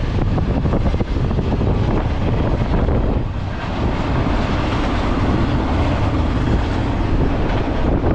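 Double-stack intermodal freight train rolling past: a steady, loud rumble of the well cars' wheels on the rails.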